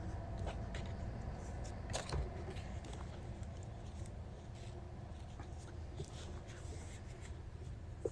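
Quilting fabric being rolled by hand onto a corrugated plastic core: faint rustling with scattered light clicks, a slightly stronger one about two seconds in, over a steady low hum.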